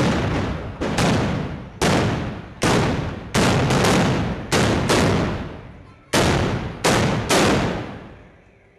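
Black-powder arquebuses fired one after another in a ragged volley: about eleven loud shots at uneven intervals, each trailing off in a reverberant tail. The firing stops a little over a second before the end.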